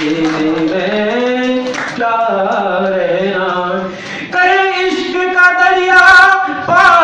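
A man singing lines of verse unaccompanied into a microphone, drawing out long wavering notes. The pitch climbs about a second in and again after a short break near four seconds, and the higher notes towards the end are the loudest.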